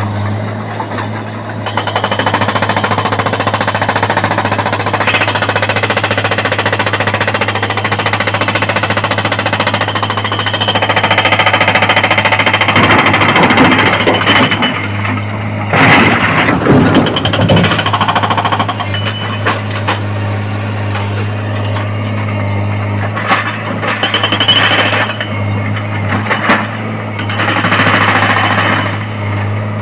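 Hydraulic rock breaker on a Tata Hitachi excavator hammering rapidly on quarry rock, starting about two seconds in, over the steady hum of the excavator's engine.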